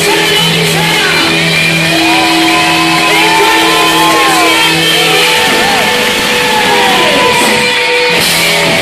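Live rock band playing loud through a PA: amplified electric guitars, bass and drums, with long held notes for the first half and bending lines over them.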